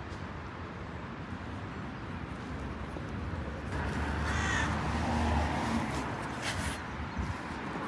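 A single arching animal cry about halfway through, over a steady low hum.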